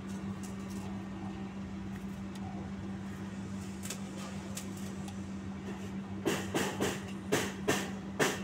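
A steady low hum with faint clicks. About six seconds in, music with a hard drum beat comes in over it.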